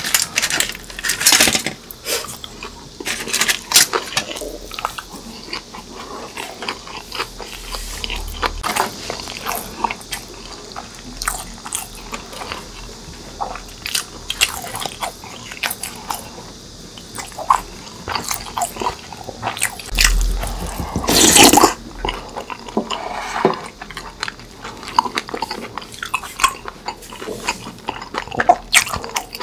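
Close-miked eating sounds: crunching and chewing of sauce-coated Korean fried foods, with clicks and scrapes of chopsticks and a wooden spoon against foil and bowls. About two-thirds of the way through, a louder noise lasts about a second.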